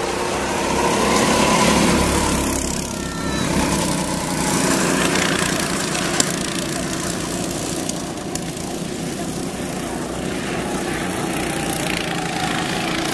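Go-kart engines buzzing as several karts race past, loudest about two seconds in and again around five seconds in.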